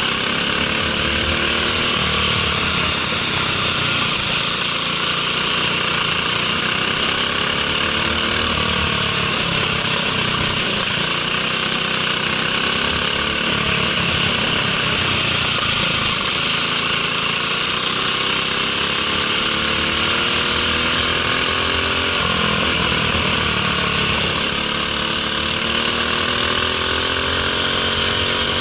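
Single-cylinder four-stroke Briggs & Stratton LO206 kart engine heard onboard at racing speed: the pitch climbs slowly and then falls away several times as the kart accelerates and lifts for corners, over a steady loud hiss.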